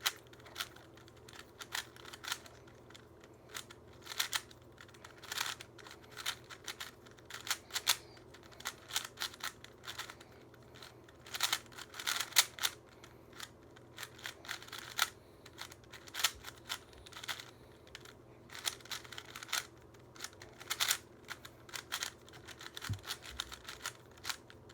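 Plastic Rubik's cube layers being turned rapidly during a timed speedsolve: quick runs of irregular clicking clacks, with brief pauses between runs.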